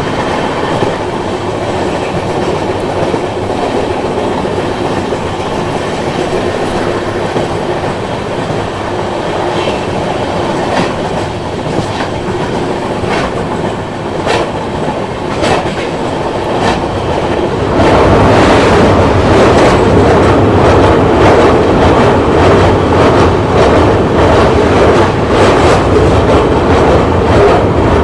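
Passenger train running at speed, wheels rolling on the rails with scattered sharp clicks. About eighteen seconds in, the noise suddenly grows much louder and fuller as the train runs onto a steel truss bridge span.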